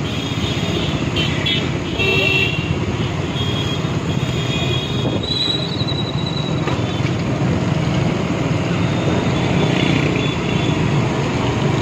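Road traffic noise, with short high horn toots over it, several in the first few seconds and one more about five seconds in.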